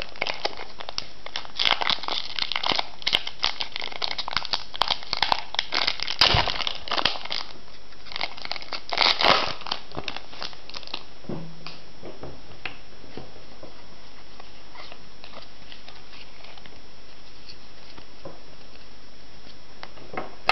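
Foil wrapper of a Pokémon trading card booster pack crinkling and tearing as it is opened, dense crackling for about eleven seconds with the loudest rips about six and nine seconds in. After that only a few faint clicks of cards being handled over a steady hiss.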